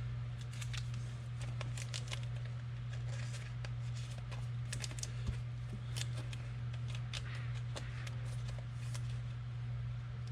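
Trading cards being handled and flipped through by hand: a quick scatter of light clicks and rustles, over a steady low hum.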